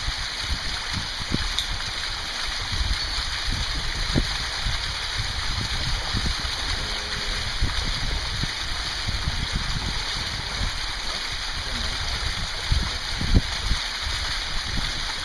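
Mountain stream running and splashing over rocks: a steady hiss of rushing water, with irregular low thumps underneath and a few sharper knocks near the end.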